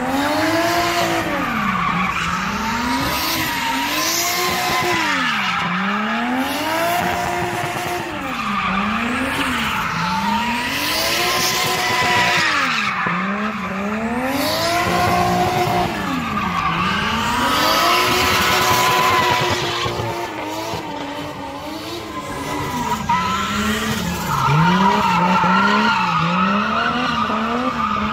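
Lexus IS300 drift car sliding in circles, its engine revving up and falling back again and again, about every two seconds, over continuous tyre screech.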